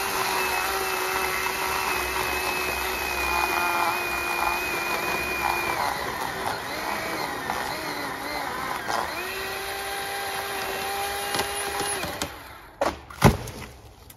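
Ryobi 18-volt brushless cordless chainsaw running at a steady electric whine as it cuts through a dead tree's trunk. The pitch sags and wavers midway as the chain bogs down in the wood, then steadies and cuts off about twelve seconds in. Moments later come a few sharp cracks and thuds as the tree falls, the loudest near the end.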